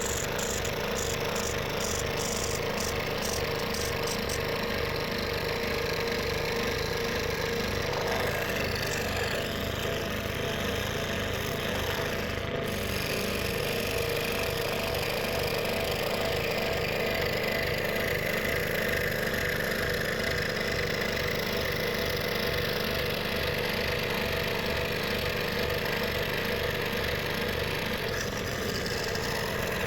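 Scroll saw running steadily with a Pegas No. 5 spiral blade, cutting through 3.6 mm plywood: an even motor hum with a fast, regular beat of blade strokes.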